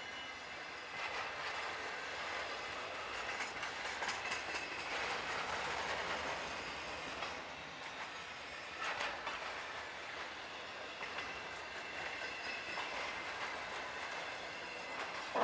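Freight train of autorack cars rolling past close by: the steady rumble and rattle of steel wheels on rail, with a few sharper clacks about nine seconds in.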